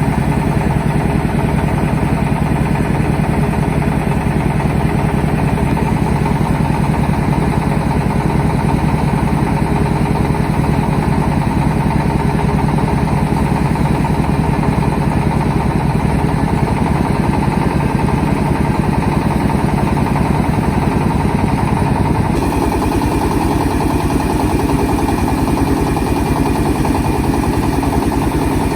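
Engine of a mobile rice-milling truck running steadily, with its sound changing about two-thirds of the way through.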